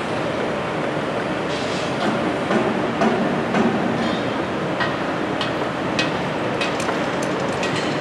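Construction site din: a steady noisy rumble, with a scatter of sharp knocks and clanks in the second half.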